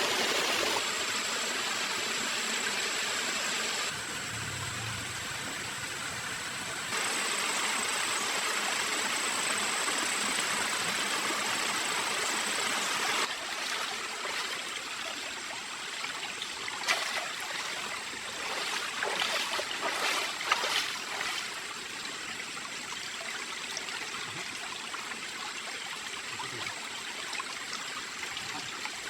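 Forest stream water flowing steadily, its level jumping abruptly several times. A few short sharp sounds stand out over the flow around the middle.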